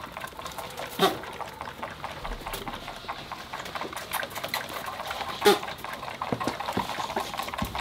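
Nigerian dwarf goat kids bleating: two short, loud bleats, about a second in and again about five and a half seconds in, with small clicks and rustling between them.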